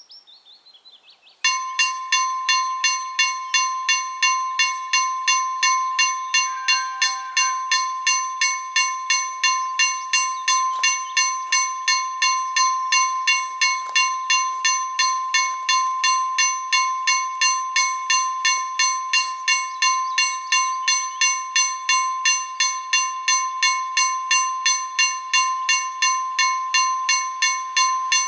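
KLD-40 electric level-crossing bell starting up about a second and a half in, then ringing with a rapid, even run of strikes. It is the crossing's warning that a train is approaching.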